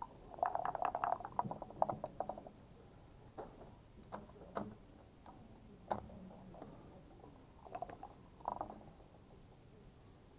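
Backgammon checkers and dice clattering on the board in a dense run of clicks for the first couple of seconds, then scattered single clacks as checkers are set down and the game clock's button is pressed, with another short cluster of clicks near the end.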